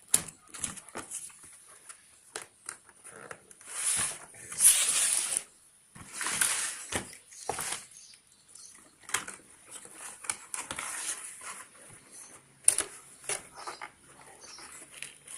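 Cardboard packaging of a cookware set being opened by hand: scattered clicks and knocks with a few louder rustling bursts about four and six seconds in.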